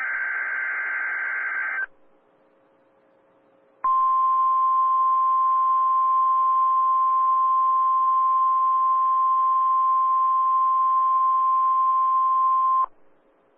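NOAA Weather Radio alert signals for a weekly test: the end of a SAME digital data burst, a harsh warbling buzz, then after about two seconds of near silence the 1050 Hz warning alarm tone, a single steady pure tone held for about nine seconds before it cuts off.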